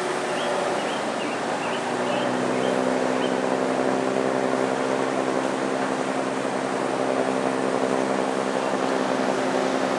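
WWII DUKW amphibious 'Army Duck' engine running steadily under way, its engine note coming through more clearly about two seconds in.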